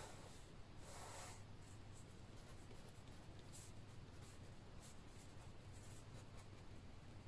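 Fine-tip black liner pen drawing on watercolour paper: faint scratchy strokes, the strongest about a second in, over a low steady hum.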